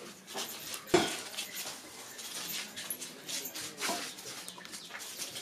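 Hands handling filled paper firework tubes on corrugated cardboard: light knocks and scraping, with one sharp knock about a second in.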